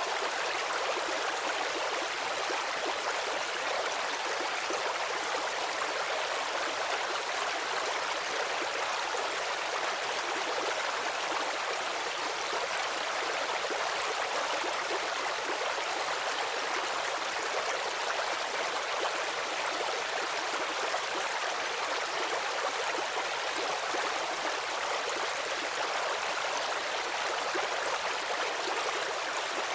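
Stream running steadily, a continuous even rush of water without distinct splashes, weighted toward the middle and upper pitches with little low rumble.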